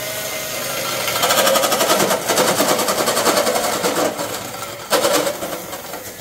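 Cordless drill driving a bimetal hole saw through a zinc rain gutter, a loud fast rattling grind under heavy load, with a brief surge about five seconds in. The drill is overloaded and its motor is burning out: smoke pours from it as it cuts.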